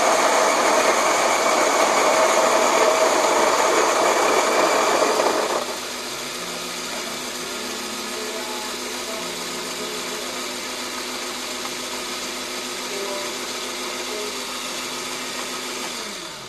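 Electric coffee grinder grinding beans, steady and loud for about five seconds, then running on with a quieter, steady sound until it stops near the end.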